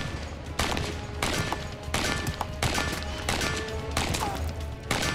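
StG 44 assault rifle firing a string of single shots of its 7.92×33 mm intermediate cartridge in semi-automatic, roughly two a second, as metal bowling-pin targets are hit.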